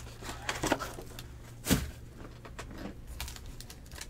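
Handling of a cardboard trading-card hobby box and a foil-wrapped pack on a table: scattered light clicks and rustling, with one louder knock about halfway through.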